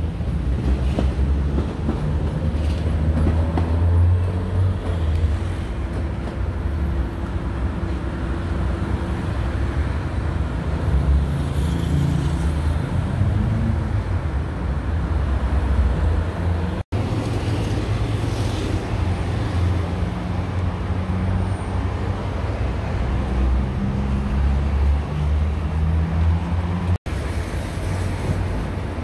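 Steady rumble of busy city road traffic, mixed with the running of an Athens Metro Line 1 electric train on the tracks below.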